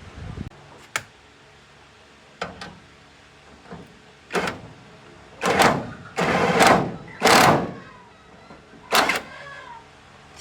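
A series of sudden knocks and longer scraping sounds at irregular intervals, about eight in all. The longest and loudest scrapes come about six to seven and a half seconds in.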